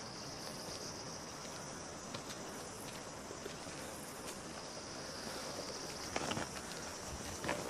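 Steady high-pitched drone of insects in the forest. A few short knocks and scuffs near the end as a backpacker passes close by.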